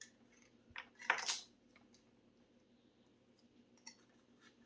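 Small plastic toy pieces and packaging being handled: light scattered clicks and taps, with one brief louder rustle about a second in.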